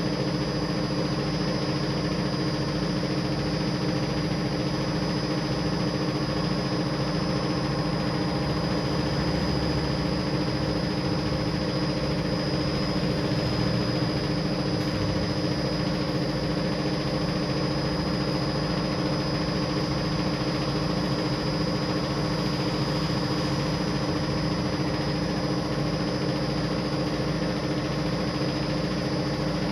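SPIN3300 carpet spinner running at a steady speed: its 3 HP electric motor and spinning stainless drum give an even hum with a thin high whine over it.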